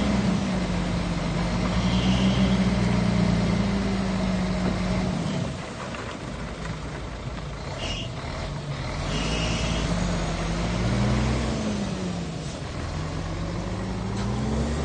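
Shantui bulldozer's diesel engine working under load. The engine note sags and goes quieter about halfway through, then climbs again, with a few brief high squeals.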